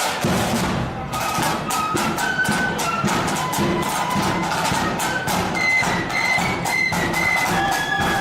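A marching flute band playing: high-pitched melody on flutes over loud, rapid drumming.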